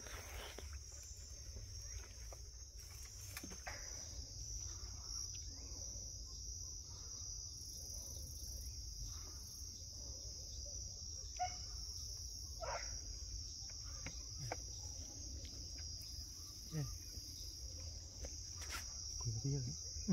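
A steady, unbroken high-pitched chorus of night insects, chirring like crickets. A few short rustles and knocks cut in here and there, louder near the end.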